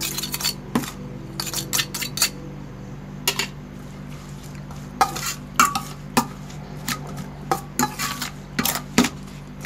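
Metal spoon stirring a wet mix of sliced lemongrass, shallots and chilies in a stainless steel bowl, with irregular clinks and scrapes of the spoon against the bowl, loudest about five seconds in and again near the end. The dressing is being mixed so the sugar and fish sauce dissolve together.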